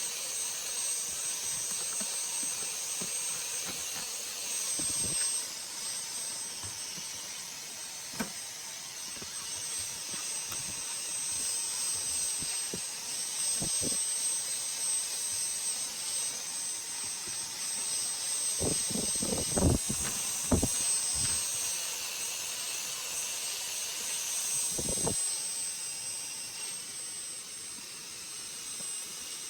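Vacuum cleaner running steadily, a high-pitched whine over a hiss, with a few knocks and bumps, a cluster of them about two-thirds of the way through.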